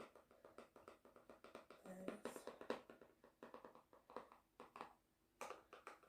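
Faint, irregular clicks and taps of objects being handled close to the microphone, with a brief pitched sound about two seconds in.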